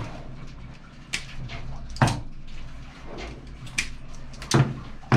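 A hand tool working on the stripped ends of a three-core 240 V cable: about five sharp clicks and snaps, spaced irregularly over a low rustle of handling.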